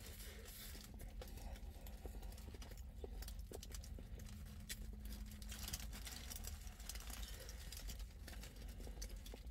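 A person chewing a bite of fried chicken sandwich with the mouth closed: faint, irregular small mouth clicks over a steady low hum inside a car's cabin.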